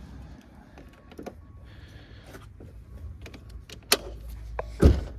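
Scattered clicks and clatter of jump-starter clamps and cable being handled and clipped onto a car battery's terminals, with a sharp click near the end and a louder thump just after it.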